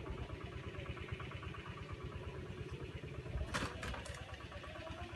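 An engine running steadily with an even low pulsing, and a short sharp clatter about three and a half seconds in.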